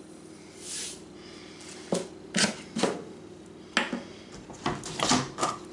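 A short hiss of salt pouring from a canister, then a run of sharp clicks and knocks as a measuring spoon, the salt canister and a small glass spice jar are handled and set down on a wooden tabletop.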